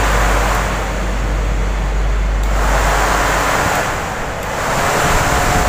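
Electric radiator/AC condenser cooling fan running at high speed, giving a steady rush of air. A low hum underneath drops away about three and a half seconds in.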